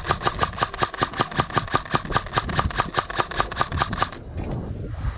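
Airsoft electric rifle (AEG) firing a rapid, even string of shots, about six a second, stopping suddenly about four seconds in.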